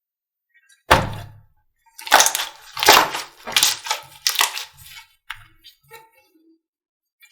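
Slime being handled by hand. There is a sharp thud about a second in, then four loud squeezes about three-quarters of a second apart, then smaller pops that die away.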